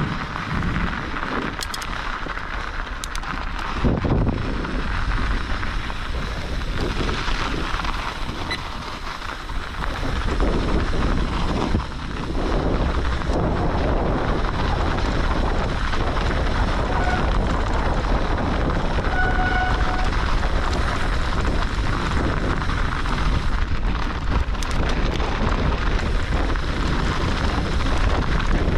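Wind buffeting the microphone over the rumble of a mountain bike's knobby tyres rolling on hard-packed snow, with the bike rattling and clicking over bumps. It gets louder and steadier from about ten seconds in as the ride picks up speed.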